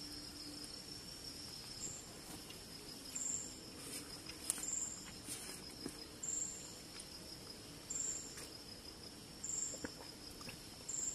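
Night insects, crickets, keep up a steady high trill, with a higher short chirp repeating about every one and a half seconds. A few faint clicks sound over them.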